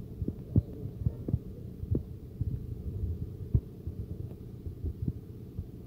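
Low steady rumble with irregular soft thumps and knocks, a few a second, as heard from inside a slowly moving car.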